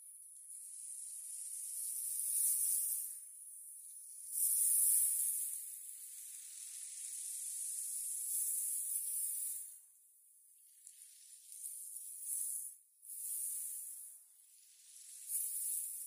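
Small sea waves washing in over a pebble beach: a hissing wash of foam over the stones that swells and fades in several surges, the later ones shorter and weaker.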